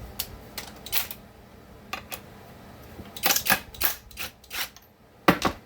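A series of sharp metallic clicks and clacks, single and in short clusters: tools and small parts being handled while a chainsaw is taken apart on a workbench.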